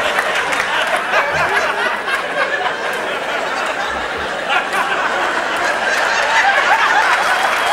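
Theatre audience laughing, many voices at once, held steadily throughout.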